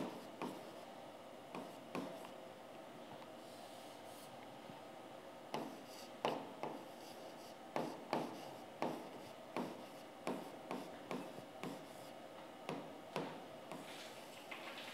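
Stylus pen writing on an interactive display screen, making short faint taps and scrapes as the strokes of a word go down. The taps are sparse at first, then come about once a second from around five and a half seconds in.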